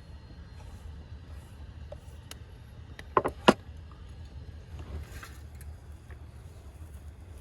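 A quick cluster of sharp knocks about three seconds in, the last the loudest, over a steady low rumble.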